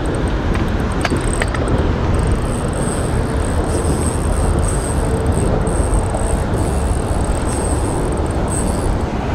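Drag of a Daiwa Emeraldas Air spinning reel giving line to a hooked kingfish, a thin high whine that comes and goes. It sits over a steady rumble of road traffic and wind.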